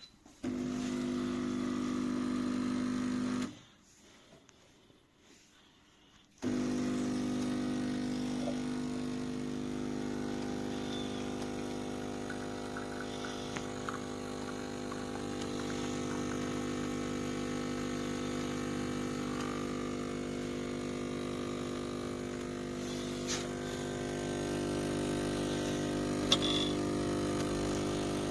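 CASABREWS 20-bar espresso machine's vibratory pump buzzing steadily. It stops for about three seconds, then runs again. There are a couple of light clicks near the end.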